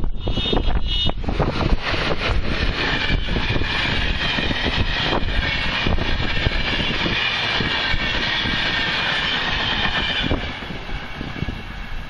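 An electric passenger train passes close by at low speed: the EU07A locomotive goes by, then a line of coaches rolls past with wheels clattering over rail joints and a steady high ringing, fading as the last coach passes about ten seconds in. Right at the start there is a short double toot, the locomotive's horn.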